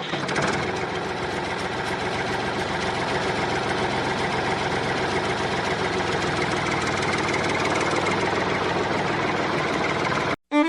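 Small motor running steadily with a fast, even ticking.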